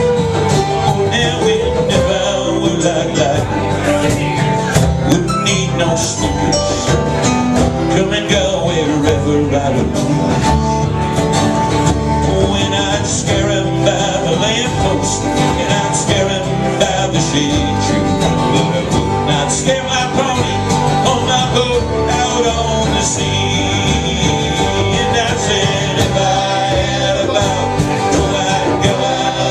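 Live band playing a country-style song, with guitars and a steady beat.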